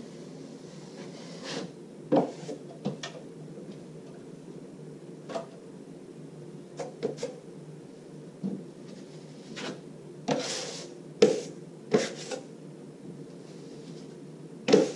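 Steel drywall knife scraping and clacking in short strokes as joint compound is loaded and spread on wallboard joints, about a dozen sharp scrapes and knocks over a steady low hum.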